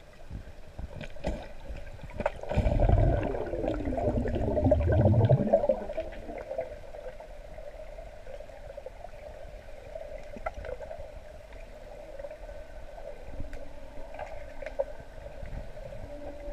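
Underwater pool sound heard through a camera housing: a steady hum, with a loud rush of gurgling, bubbling water that comes in about two seconds in and dies away after about six seconds.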